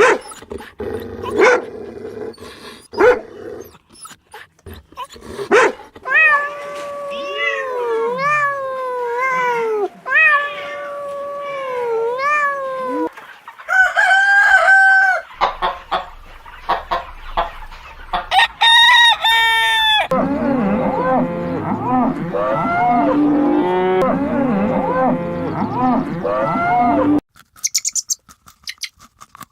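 Domestic chickens: a rooster crowing several times in falling, drawn-out calls, then many hens calling and clucking together until they cut off suddenly near the end. A few sharp clicks come first.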